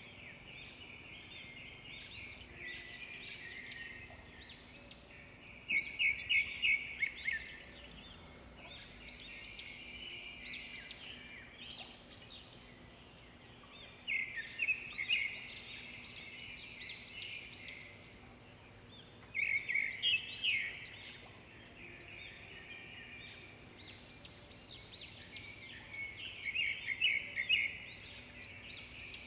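Birds calling in bursts of rapid, high-pitched chattering notes, a new burst every few seconds.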